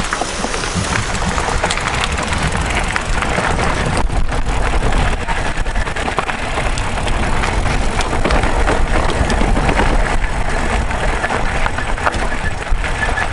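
Mountain bike being ridden along a rough gravel trail: a steady low rumble of wind on the microphone and tyre noise, with frequent small clicks and rattles from the bike over stones.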